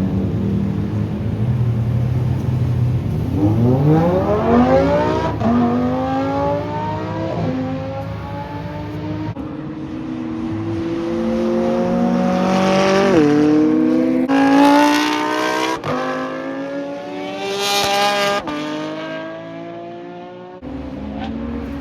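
A performance car's engine accelerating hard through the gears, its pitch climbing and then dropping with each shift. A low engine rumble returns near the end.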